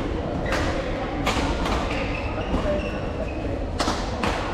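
Badminton racquets striking a shuttlecock in a rally: several sharp hits at irregular intervals over a steady low hall rumble.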